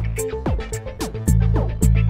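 Background music: plucked guitar-like notes over a steady beat with a strong bass.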